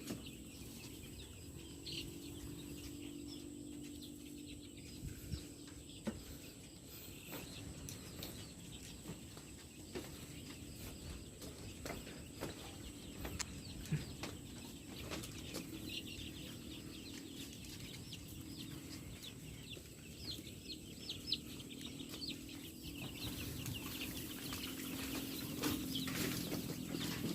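Young layer chicks peeping faintly, short high calls scattered throughout and busier near the end, with a few light clicks.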